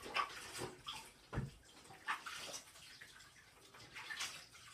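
Bathwater sloshing and splashing in a bathtub in several short, irregular splashes while a dog is being washed.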